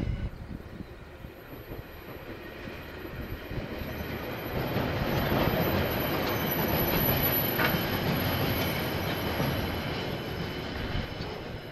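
KiwiRail train passing on the line: a steady rumble of wheels on rails that grows louder to a peak in the middle and eases off near the end.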